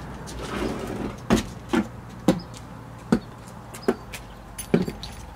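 Footsteps in sandals on concrete, with a plastic storage tub knocking as it is carried. About six sharp knocks come half a second to a second apart over a low steady hum.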